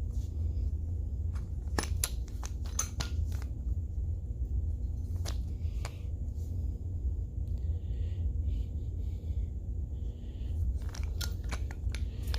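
Scattered clicks and light knocks of small metal hood-hinge parts (bushings, washers, hinge pieces) being handled and fitted together, over a steady low rumble.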